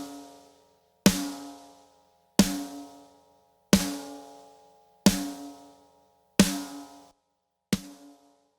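A single snare drum hit repeated about every 1.3 s, each with a sharp crack and a ringing tone that dies away, played through a compressor plugin; the last two hits ring shorter.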